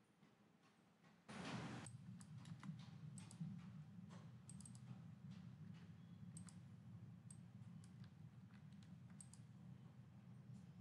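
Faint computer mouse clicks and a few keyboard taps, scattered and irregular. About a second in there is a brief rush of noise, after which a steady low hum sets in under the clicks.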